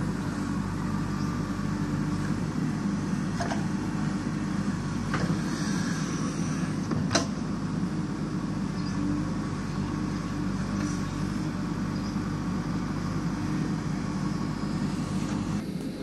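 JCB backhoe loader's diesel engine running steadily while the backhoe arm digs into a heap of earth, with a few short knocks, the sharpest about seven seconds in.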